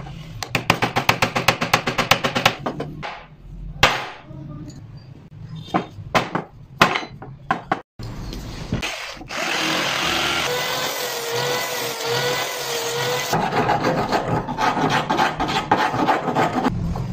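Quick back-and-forth hand-tool strokes on wood, about six a second, then a few scattered knocks. After that an angle grinder with a sanding disc runs steadily for about five seconds, its pitch wavering. Then come rasp or file strokes on wood again.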